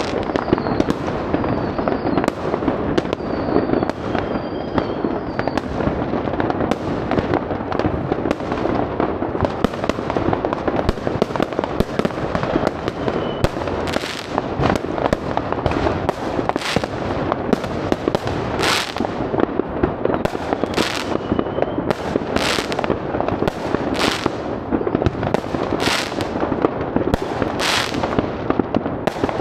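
Fireworks going off from many directions: a constant rattle of bangs and crackles, with a few high whistles in the first few seconds. From about halfway through, louder single bangs come about every one and a half to two seconds.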